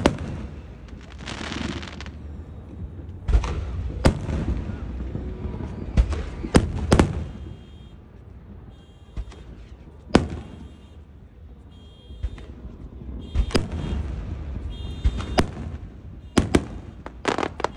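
Consumer fireworks going off: about a dozen sharp bangs at irregular intervals, several followed by a crackling, hissing trail.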